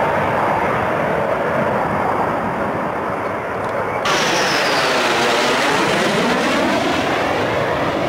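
Jet engine roar of a Sukhoi Su-22 flying low. About halfway it cuts to another recording, where the roar sweeps up and down in pitch as the jet passes close.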